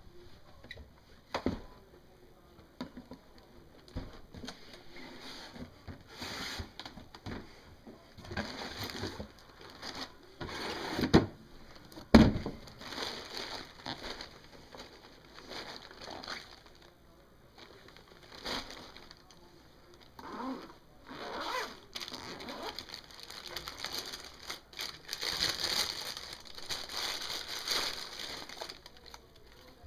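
Unboxing noises: a cardboard shoebox and a boot bag handled, and crumpled tissue paper crinkling and rustling as a football boot is unwrapped. A few sharp knocks stand out, the loudest two about eleven and twelve seconds in.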